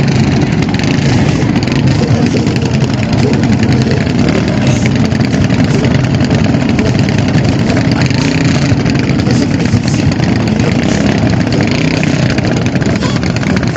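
Engine of a motorized outrigger boat (bangka) running hard at the shoreline, its propeller churning up spray; a loud, steady engine noise without a break.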